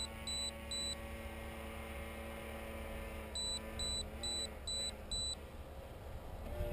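Electronic alarm on an RC radio transmitter beeping in quick high-pitched runs of about two beeps a second: the tail of one run at the start and a run of five a little past halfway. It sounds as the plane's battery runs out. A faint steady hum and light wind rumble lie under it.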